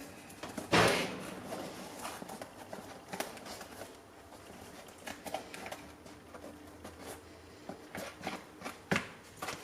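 Foam-backed 3D puzzle pieces being handled and pressed into place: scattered light clicks and knocks, the loudest about a second in.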